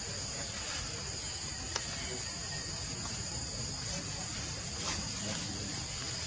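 Steady, high-pitched chorus of forest insects, with a single sharp click about two seconds in.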